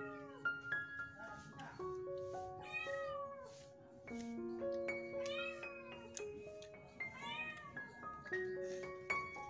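Background music of steady held notes, with a cat meowing several times, a drawn-out rise-and-fall call about every two seconds.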